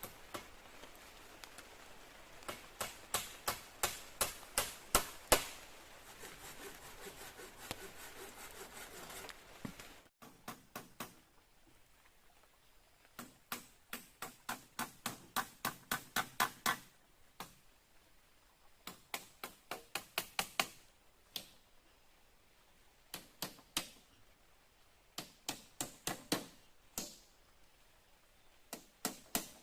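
Sharp knocking, about three strokes a second, in repeated bursts of a few seconds each with quiet gaps between.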